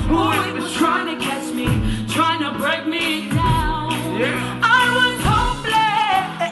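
Live band playing a Christian pop song: a woman sings lead over drums and bass, with a heavy low drum hit roughly every one and a half to two seconds.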